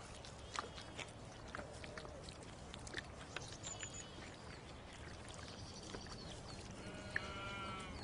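An animal calling, with a short wavering cry near the end, amid scattered clicks and ticks.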